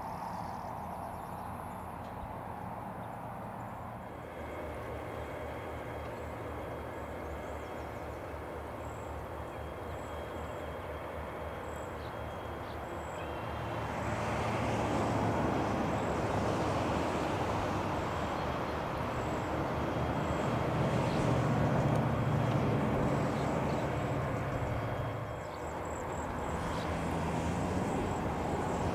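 EMD diesel freight locomotives running with a steady low engine drone, which grows louder about halfway through.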